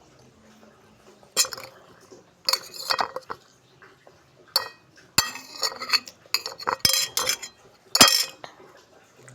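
Cutlery clinking against a plate or bowl while eating: a string of sharp, irregular clinks with a short ring, the loudest about eight seconds in.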